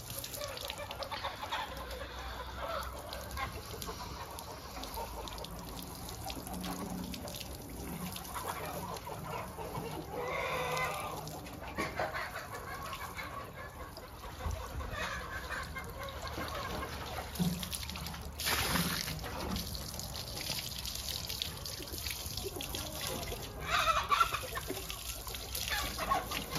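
Chickens clucking, with a rooster crowing once about ten seconds in, over the steady splash of water from a garden hose running into a metal wheelbarrow. A few knocks near the end.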